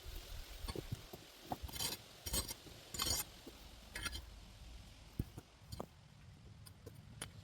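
Hand work in a potato bed: a few short scrapes and rustles of soil and plants, with scattered light knocks and clinks.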